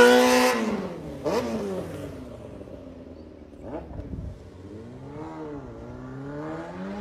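A loud engine rev close by cuts off about half a second in. A fainter car engine follows, its pitch falling and rising several times as the car accelerates away.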